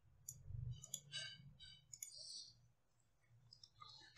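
Faint, scattered clicks of a computer mouse and keyboard keys as the terminal is closed and reopened, with a faint low hum in the first second or so.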